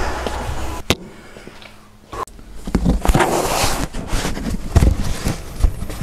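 Handling noise of work on a car engine's cooling system: rustling with a sharp click about a second in and several dull knocks of tools and parts later on.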